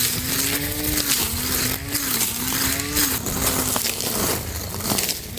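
Mailtank SH226A 12 V battery grass cutter's electric motor running with a steady whine that dips in pitch and recovers about once a second, as the motor is loaded and then freed while cutting grass.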